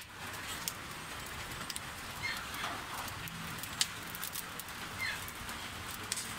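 Wood fire crackling under a cooking pot: irregular sharp pops and snaps over a steady hiss, with one loud pop near the start and another just before the middle.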